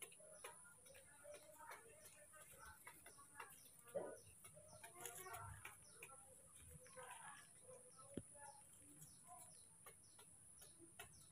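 Near silence: faint outdoor background with scattered soft bird calls and a steady high hiss. There is a light knock about four seconds in and a sharp tick about eight seconds in.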